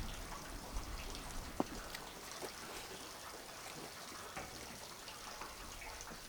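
Faint, steady trickle of water running at a small dam, with a few light clicks, one about a second and a half in.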